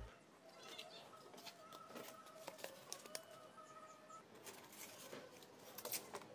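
Faint taps and scrapes of cut cardboard pieces being moved and laid flat on a wooden tabletop, with scattered small clicks; the loudest comes near the end.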